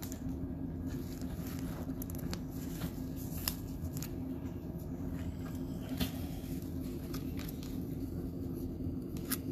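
A few light plastic clicks and taps as a trading card is handled with a clear plastic card holder, over a steady low room hum.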